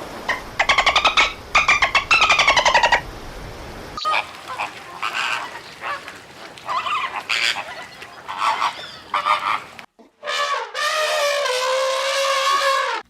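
A sequence of animal calls: rapid pulsed calls with falling pitch for the first three seconds, a run of short separate calls in the middle, and one long drawn-out call starting about ten seconds in.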